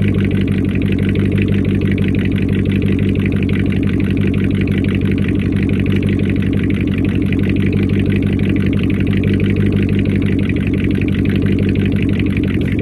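Car engine idling steadily, with an even, unchanging note and no revving.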